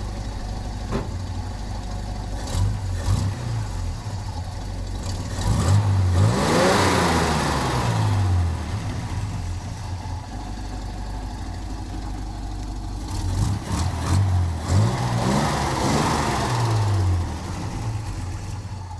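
Vehicle engine idling, revved up and allowed to fall back twice: about six seconds in and again about thirteen seconds in.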